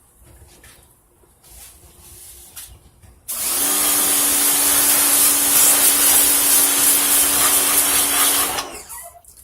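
Pressure washer running: a steady motor hum under a loud hiss of spray. It starts suddenly about three seconds in and stops shortly before the end.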